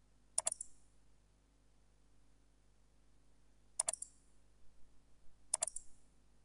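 Computer mouse button clicks: three sharp clicks, each a quick press-and-release, the first almost at once and the other two a little under two seconds apart later on, with a few faint ticks between them.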